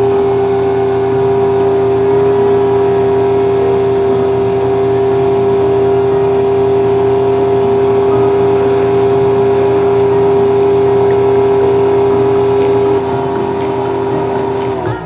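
Lutian 1400-watt electric pressure washer running with a loud, steady hum, its motor and pump holding one even pitch until it cuts off abruptly at the end.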